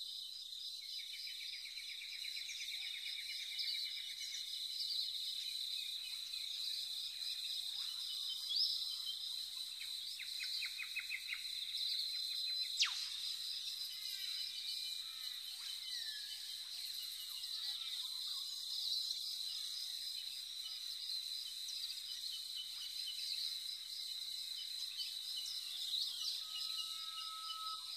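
Steady high-pitched insect chorus with scattered bird chirps and trills over it. A sharp click about thirteen seconds in.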